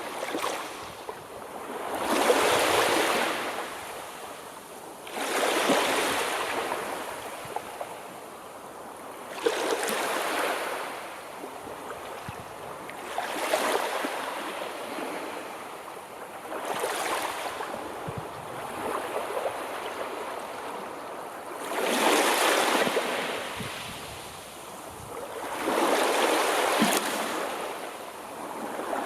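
Sea waves washing in one after another, about every three to four seconds. Each one swells into a hiss and then falls away.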